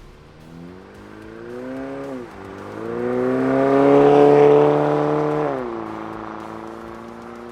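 2024 Toyota Tacoma's 2.4-litre turbo four-cylinder engine accelerating through a Milltek cat-back exhaust. The note climbs, dips sharply about two seconds in as the transmission shifts up, and climbs again to its loudest. Past the middle it drops to a steady lower drone.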